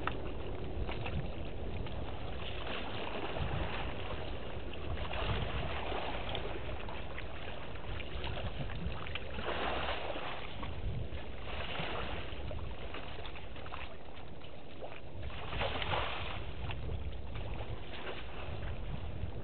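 An African elephant wading through a shallow waterhole, its legs sloshing and splashing through the water, with several louder splashes spread through.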